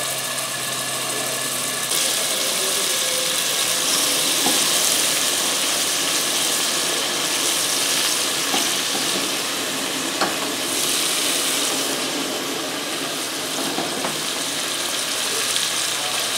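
Cubes of beef sizzling in hot olive oil in an aluminium pot as they are laid in to sear over high heat. The sizzle gets louder about two seconds in as more pieces go in, with a few light knocks of meat against the pot.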